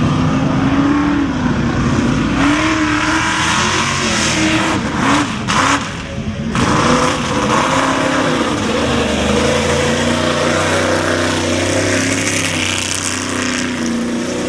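Big lifted Chevy mud truck's engine revving hard under load as the truck churns through a mud pit, its pitch rising and falling with the throttle. The engine noise briefly drops about five to six seconds in, then comes back up.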